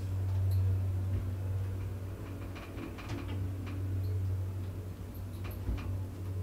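Steady low hum of a lift cabin in motion, with a few faint clicks and ticks in the middle and near the end.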